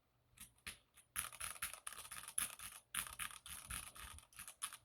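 Mechanical keyboard keys clacking: a few separate presses in the first second, then rapid typing for about four seconds, testing the sound of freshly swapped keycaps.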